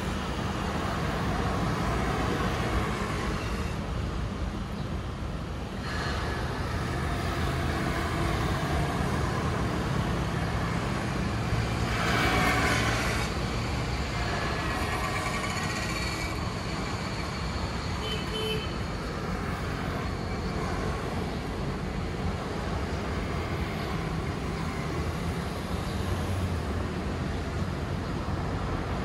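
Road traffic at an intersection: scooters and cars drive past with a steady run of engine and tyre noise. One louder vehicle passes close about twelve seconds in.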